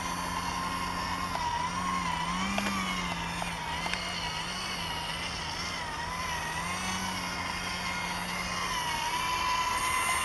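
Electric motor and propeller of an EPP-foam electric aerobatic RC plane whining steadily as it hovers nose-up, the pitch wavering up and down again and again with throttle corrections.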